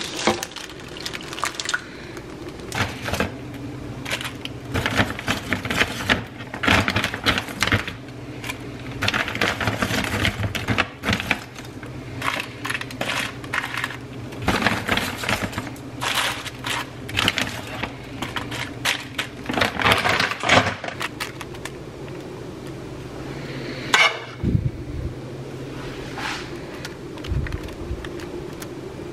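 Kitchen handling sounds while a slow cooker is filled: the plastic slow-cooker liner crinkling and rustling, with light clinks and knocks of a can and utensils against the pot. The busy rustling and clinking thins out near the end, with one louder knock a few seconds before the end.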